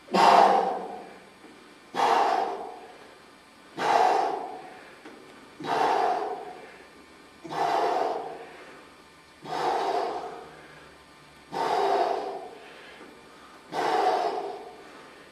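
A man breathing out hard, almost grunting, with each pull of a heavy one-arm dumbbell row. Each breath is sharp and dies away over about a second. There are eight of them, about one every two seconds, in rhythm with the repetitions.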